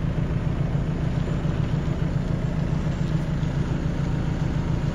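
Large Claas tractor's diesel engine running at a steady low drone as the tractor drives slowly toward the listener.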